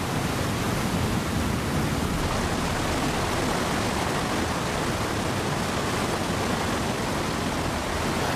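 Steady roar of white water rushing through a narrow rocky channel in a salmon river's rapids.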